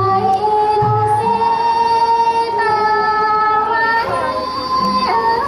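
Thai classical dance music: a high voice sings long held notes that slide between pitches, over a low drum stroke about once a second.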